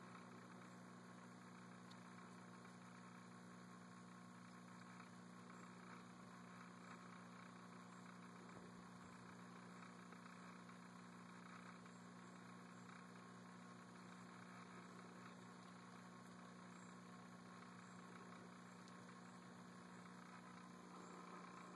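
Near silence: a faint, steady low hum under light hiss.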